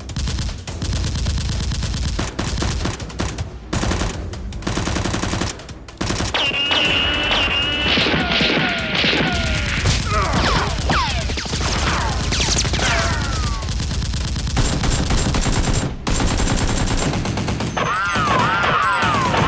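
Rapid, sustained automatic gunfire in quick volleys, with gliding whistle-like tones rising and falling through the second half of the volleys.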